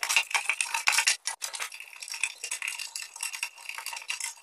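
Metal parts clinking and rattling in quick irregular clicks as an angle grinder and its clamps are handled and fitted onto a workbench.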